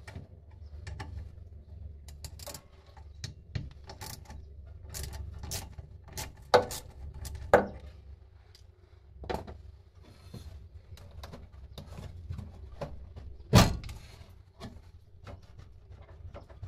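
Hands and a tool working loose the carburettor of a Piaggio Ape 50's small engine: a string of irregular clicks and taps, with three louder knocks about six and a half, seven and a half and thirteen and a half seconds in.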